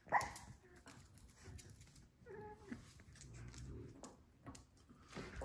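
French bulldog giving a sharp yip that drops in pitch right at the start, then a short whimpering call about two and a half seconds in.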